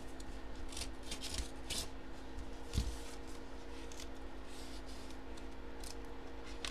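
Paper rustling and crinkling as a manila envelope is handled and opened by hand, in short scattered bursts, with a soft knock on the table a little before the middle. A steady low hum runs underneath.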